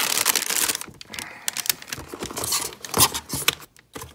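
Thin plastic bag crinkling as it is handled, giving way after about a second to scattered light taps and rustles of cardboard packaging, with one sharper knock about three seconds in.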